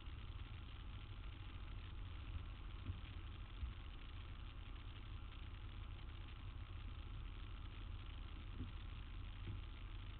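Street ambience: a steady low rumble of idling motor traffic.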